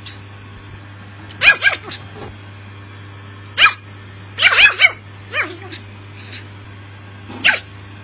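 Chihuahua puppy yapping in short high-pitched barks, in bursts of one to three with pauses between, about eight in all, over a low steady hum.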